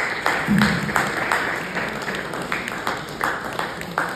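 Audience applauding, many hands clapping in a dense, even run.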